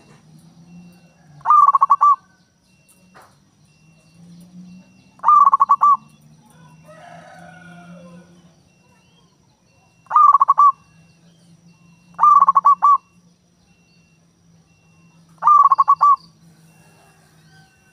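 Zebra dove (perkutut) cooing: five short phrases, each a quick run of trilled notes, a few seconds apart.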